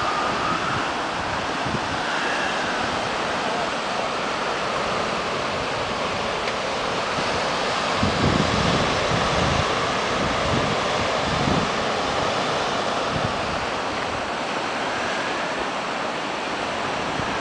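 Ocean surf breaking on a sandy beach, a steady wash of waves, with wind buffeting the microphone, strongest around the middle.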